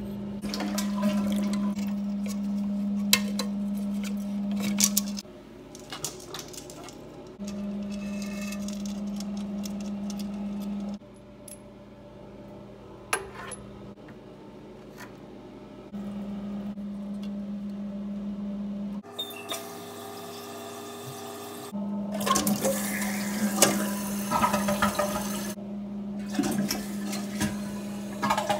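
Water running through a toilet's supply line and fill valve into the tank, with a steady low hum that starts and stops at cuts. Sharp clicks and knocks of plastic parts being handled are heard throughout, and a louder rush of water comes about two-thirds of the way through.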